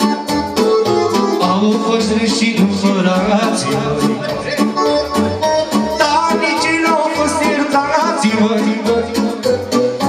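Live Romanian party-band music from electronic keyboards over a steady, pulsing bass beat, with a man singing into a microphone through the PA in the second half.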